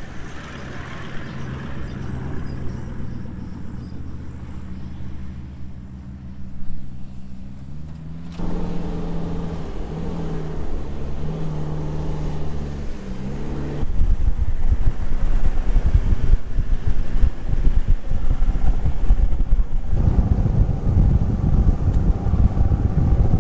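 Four-wheel-drive ute engines running steadily at low revs while driving on soft beach sand, heard in a series of shots that change abruptly about 8 and 14 seconds in. From about 14 seconds on, heavy wind buffeting on the microphone joins the engine sound and grows louder near the end.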